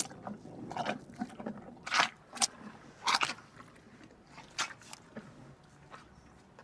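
Cartoon sea rhinoceros sound effect: a series of irregular crunching, chomping bites, about half a dozen short crunches, thinning out and quieter in the last couple of seconds.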